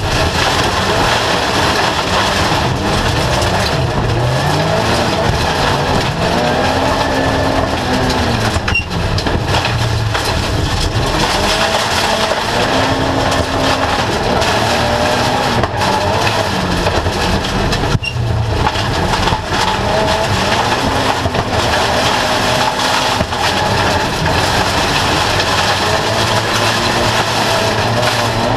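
Autocross race car's engine, a Mitsubishi Colt, heard from inside the stripped cabin, revving up and dropping back again and again as the driver accelerates, lifts and shifts through the lower gears on a dirt track. Steady rumble of road and tyre noise underneath.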